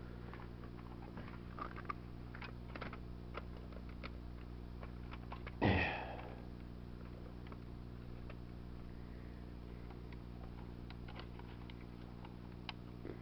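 Steady low electrical hum with several overtones and scattered faint clicks, broken by a short, loud rush of noise about six seconds in.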